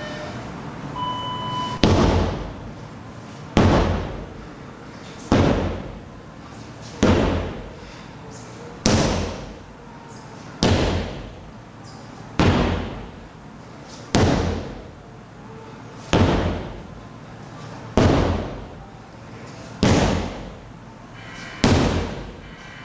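Sledgehammer strikes, a dozen heavy blows at a steady pace of about one every two seconds, each ringing out briefly before the next.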